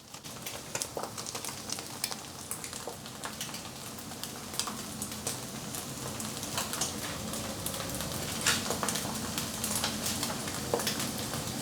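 Egg spread over a jianbing batter crepe frying in a lightly oiled pan: a steady sizzle with many small crackling pops, slowly getting louder.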